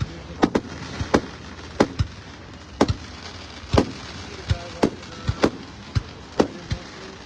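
Fireworks display: a string of about a dozen sharp bangs at irregular intervals, roughly one or two a second, some in quick pairs, each with a short echoing tail.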